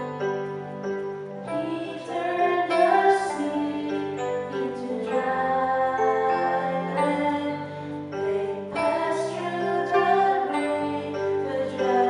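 A woman's solo voice singing a verse of a responsorial psalm over a sustained electric keyboard accompaniment.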